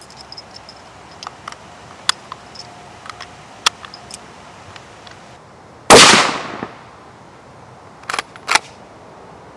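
Small clicks of 6.5 Creedmoor cartridges being pressed into a plastic rifle magazine. About six seconds in, a single loud shot from the suppressed Beretta BRX1 straight-pull rifle rings out and fades. Two quick metallic clacks follow as the straight-pull bolt is cycled back and forward.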